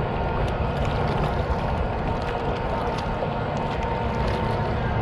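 Jet kayak under way on open water: a steady rush of water and wind with a faint, even whine from its drive. A few light splashes and drips.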